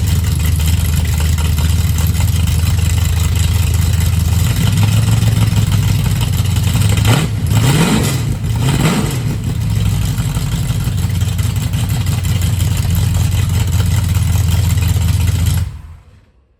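1968 Plymouth Barracuda drag car engine idling through new header collectors and mufflers, revved up twice about seven seconds in and dropping back to a steady idle; the sound cuts off suddenly shortly before the end.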